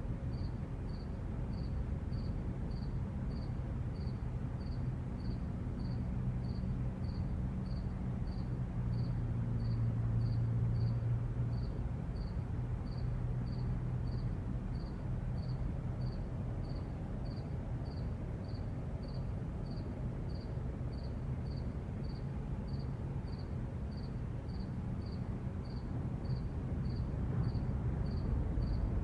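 A cricket chirping steadily, about one and a half chirps a second, over the low rumble of distant traffic. The rumble swells as a vehicle passes about ten seconds in, and again near the end.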